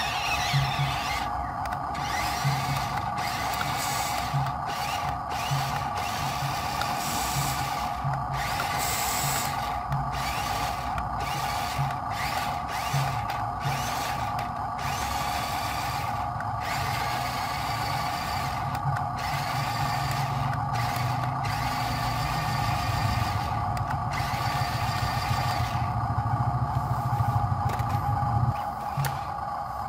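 Radio-controlled MAN truck's small electric drive motor and gears whining steadily as it works in deep mud. A low, pulsing drone grows stronger in the last few seconds.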